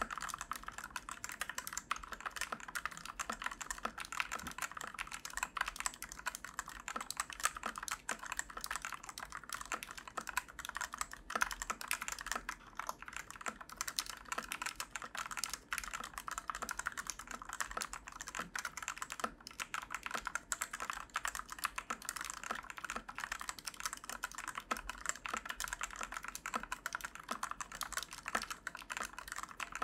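Continuous typing on the Fantech Maxfit61 Frost Wireless, a 60% tri-mount mechanical keyboard with linear Otemu Red switches, in a rapid, unbroken stream of key clacks. The switches are ones the reviewer calls very pingy, with spring ping typical of Otemu Reds.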